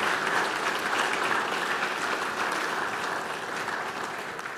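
Church congregation applauding, a steady clapping that slowly dies away near the end.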